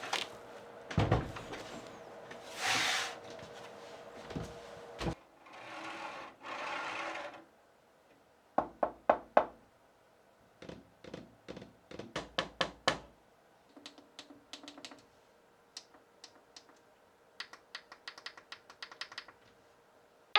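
Hands handling hard objects at close range: a few knocks and thuds and two short rustling swishes in the first seven seconds, then clusters of quick sharp clicks and taps, like parts and packaging being moved and clipped.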